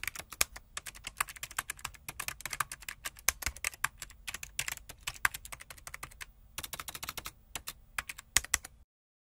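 Rapid computer-keyboard typing, a sound effect for text being typed out on screen: a quick irregular run of clicks with a brief pause about six seconds in, stopping abruptly near the end.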